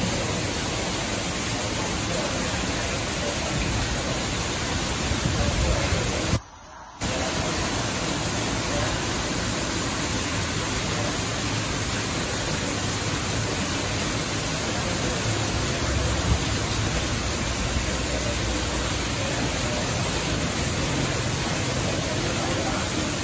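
Steady rush of water pouring and splashing into a small fish pond. The sound cuts out for about half a second six and a half seconds in.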